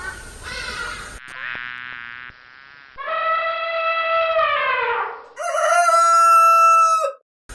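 A run of different animal calls: a few short repeated calls, then a buzzy call, then two long drawn-out calls, the second the loudest, each dropping in pitch at its end.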